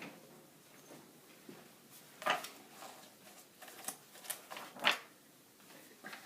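A few light knocks and clicks, the loudest about two seconds in and twice more near the five-second mark, with little else heard.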